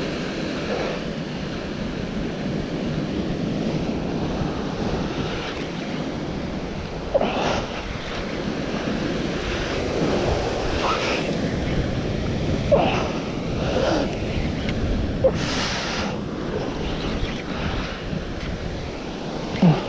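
Ocean swell surging and breaking into white water against the rocks of a sea cliff, with wind buffeting the microphone: a steady surf noise. Several short, sharp sounds stand out over it, about half a dozen, mostly in the second half.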